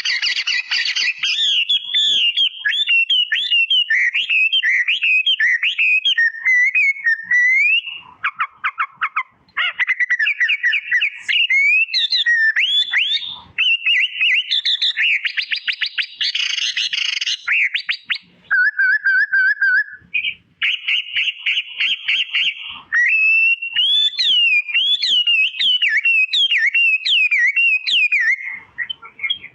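A songbird singing a fast, varied song of warbling phrases, rapid trills and repeated chirps, with a few short pauses.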